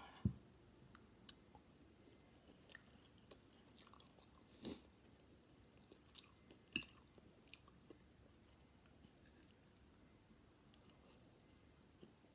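Quiet eating sounds: a person chewing a mouthful of chicken chow mein, with scattered clicks and taps of a metal fork against the ceramic plate. The sharpest knock comes right at the start, with two more a little before and after the middle.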